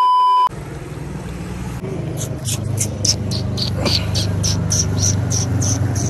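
A loud, steady test-tone beep for about half a second, as on a TV colour-bars screen. It is followed by outdoor background sound: a steady low rumble, with a rhythmic high chirping, about four chirps a second, from about two seconds in.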